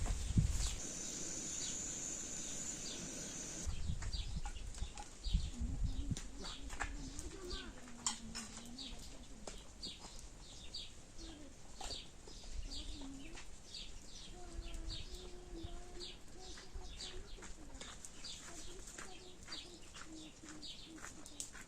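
Small birds chirping over and over, a few short high notes a second, with a lower wavering call underneath, like a dove cooing.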